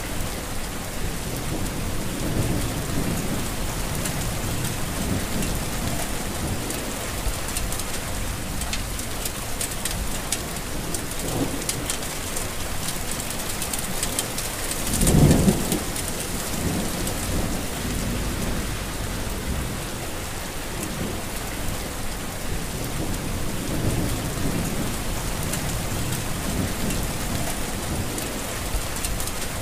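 Heavy rain falling steadily, with low rolls of thunder. The loudest roll comes about halfway through.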